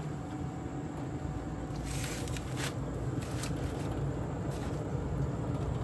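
Traeger Ironwood pellet grill running with its lid open, its fan giving a steady low hum. A few short clicks and rustles come around the middle as the foil-wrapped pork butt is set on the grate.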